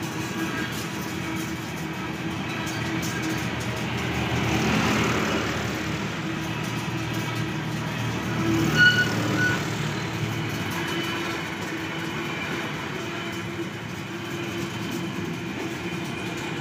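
Container wagons of a freight train rolling past, a steady rumble of wheels on rails. About nine seconds in there is a brief high-pitched squeal and a short loud peak.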